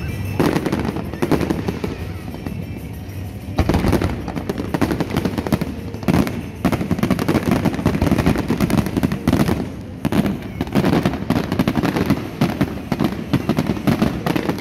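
Fireworks display: a dense barrage of aerial shells bursting and crackling in rapid succession, with heavier volleys about four, six and ten seconds in.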